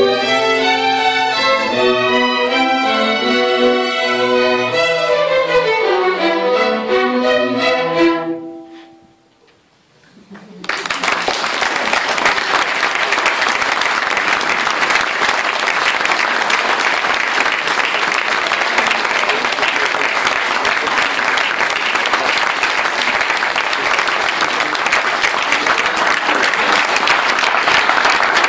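Children's string ensemble of violins playing, ending on a held chord about eight seconds in. After a short hush, the audience applauds steadily.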